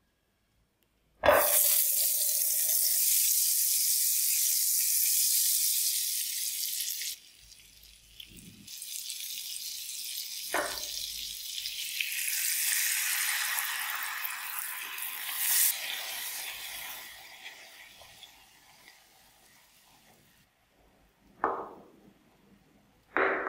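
Margarine dropped into a hot frying pan, sizzling loudly as it melts, then cutting back about seven seconds in. Milk poured into the hot fat sets off a second, slightly quieter sizzle that fades away, and a spoon knocks on the pan near the end.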